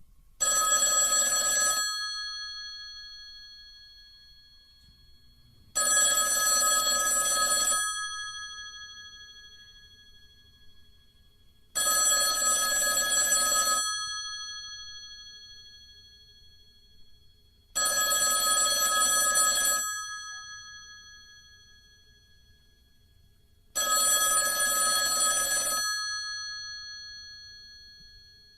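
Telephone ringing: five rings, each about two seconds long, repeating roughly every six seconds. Each ring leaves a fading ring-out before the next.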